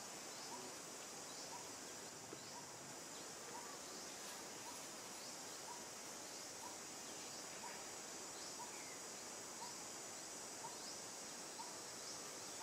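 Steady high-pitched drone of an insect chorus, with a short faint chirp repeating about once a second.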